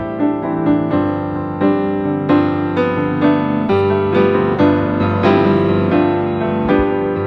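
Background piano music: a melody of struck, sustained notes over held bass notes.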